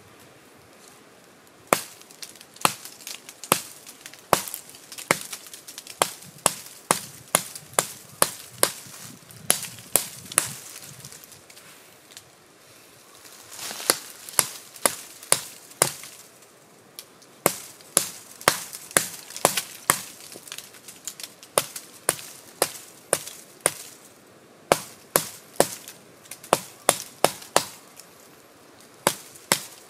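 Ed Martin MK7 bushcraft knife chopping into a standing sapling's trunk: sharp blade-on-wood strikes about two a second, in runs broken by short pauses, cutting a notch into the wood.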